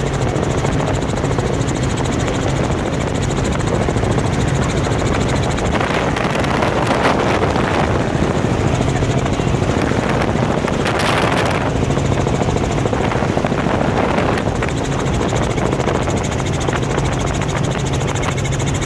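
Helicopter in flight: a steady, loud drone of engine and rotor with a constant low hum. The rushing noise grows stronger for a few seconds around the middle.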